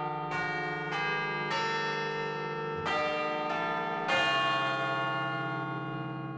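The swinging church bells of Notre-Dame de Paris cathedral ringing, with strokes every half second to second until about four seconds in. After the last and loudest stroke, the bells hum on and slowly fade.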